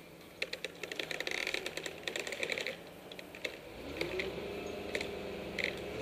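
A quick run of sharp clicks and crackles, then about four seconds in the crane's engine revs up with a rising hum and holds steady as the cut elm trunk section is lifted.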